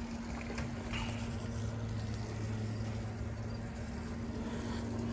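A steady, low mechanical hum of a motor running, holding one even pitch, with a few faint light clicks over it.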